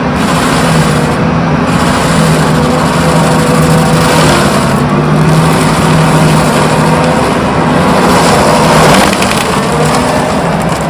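A large engine running steadily and loudly, swelling a little about nine seconds in.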